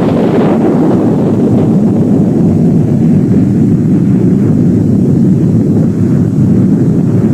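A loud, steady low rumble of noise, with no distinct tones or strikes in it.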